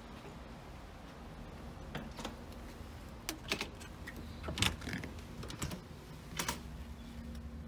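A run of short, sharp clicks and knocks, about eight spread over several seconds, from a hotel room door's key-card lock and lever handle being worked as the door is unlocked and opened.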